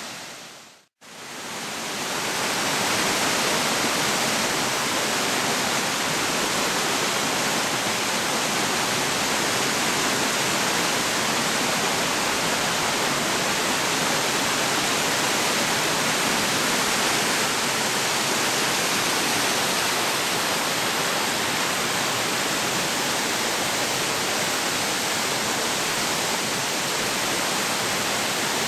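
A waterfall cascading over rock ledges: a steady rush of falling water that cuts out briefly about a second in, then runs on evenly.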